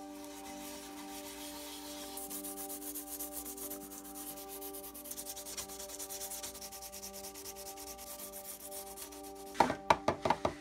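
Hand sanding with a small piece of sandpaper: quick back-and-forth rubbing strokes over the painted edge of a board. A few sharp clicks come near the end, louder than the sanding.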